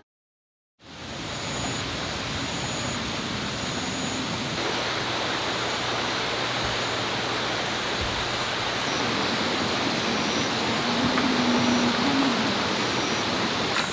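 Steady rushing hiss of outdoor ambience, like flowing or falling water, starting about a second in after a short silence. Faint short high chirps repeat through the first half.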